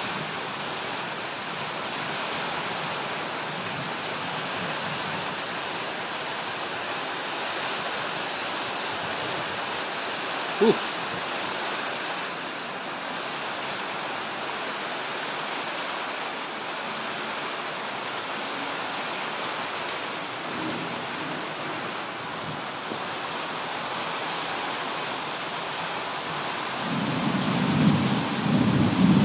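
Rain falling steadily in a thunderstorm, with a low rumble of thunder rolling in near the end. A single short click sounds about a third of the way through.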